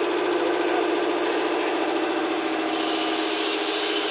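Electric-motor-driven, air-cooled piston air compressor pump running steadily, with a fast, even pulsing and a steady hum.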